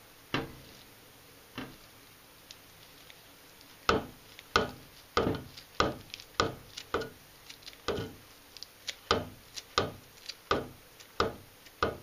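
Kitchen scissors snipping celery leaves into a plastic blender jug. A couple of single snips come first, then from about four seconds in a steady run of sharp snips, one to two a second.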